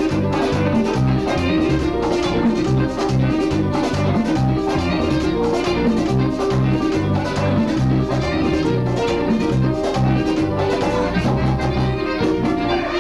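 Live merengue band playing, with a fast, steady beat and a repeating bass line.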